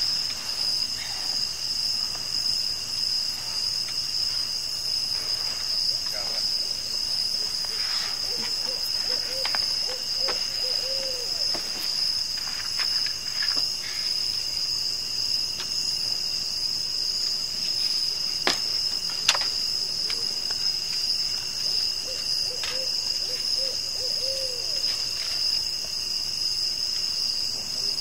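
Crickets chirping at night in one steady, unbroken high trill. A low wavering call comes twice, about nine and twenty-two seconds in, and there are a couple of sharp clicks a little past the middle.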